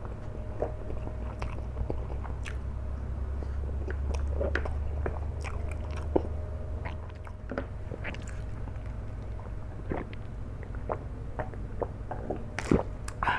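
Close-up sounds of a person chewing and biting mouthfuls of kwetiau flat rice noodles, with many small irregular mouth clicks. A low background hum stops about halfway through.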